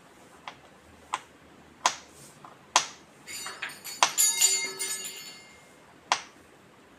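A small knife tapping and clinking on a small hard plate while chopping garlic: a handful of sharp single taps, with a ringing clatter of several clinks about three to five seconds in.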